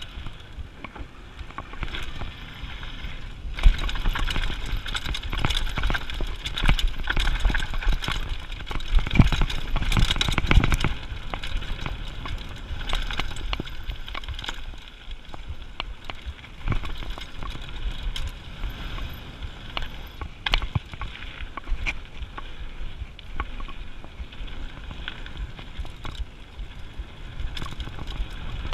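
Mountain bike riding fast down a gravel trail: tyres crunching over dirt and gravel, and the bike rattling over bumps with many small clicks. Wind rumbles on the microphone throughout, and the noise is louder for a stretch about ten seconds in.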